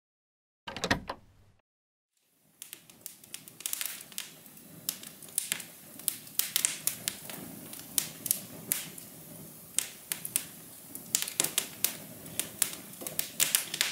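A short rattle about a second in, then a wood fire crackling with many irregular sharp pops over a low steady rush.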